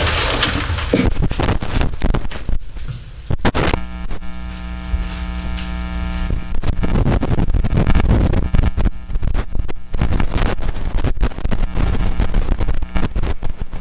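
Loud crackling and knocking noise picked up close at the microphones as the choir moves away from the stands, with a steady buzzing hum from about four to six and a half seconds in.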